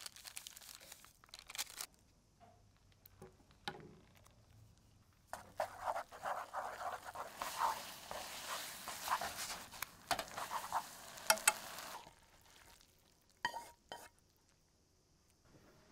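Instant noodles stirred and tossed in a hot non-stick pan, sizzling and wet as the red sauce coats them. The stirring is busiest from about five seconds in to about twelve, with a few light clicks after it.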